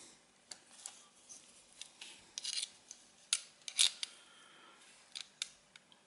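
Faint metallic clicks and a few short scrapes as a digital caliper's steel jaws are slid open and set against the jaws of a stainless-steel adjustable wrench.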